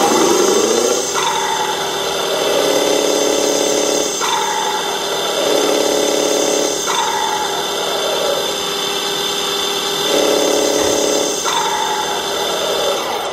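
Electronic sound module of a radio-controlled Scania truck playing a simulated truck engine being revved up and let back toward idle about four times, following the throttle.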